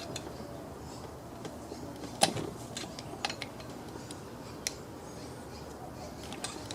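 Scattered light clicks and taps of small chainsaw parts being handled and pressed into place while an oil pump is refitted, with one sharper click a little over two seconds in.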